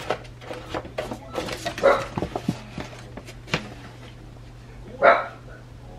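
Paper and cardboard being handled: a recipe card and a boxed steak meal kit are lifted and opened, making a run of quick papery clicks and rustles. Two louder short sounds come about two seconds in and again near the end.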